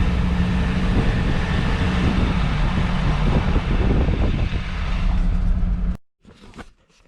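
Old ambulance camper van driving, heard from inside the cabin: a steady engine drone and road noise. It cuts off abruptly about six seconds in, leaving near quiet with a few faint ticks.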